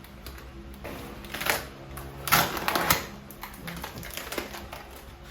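Irregular clicks, taps and scrapes of small objects being handled, busiest about halfway through, over a faint steady low hum.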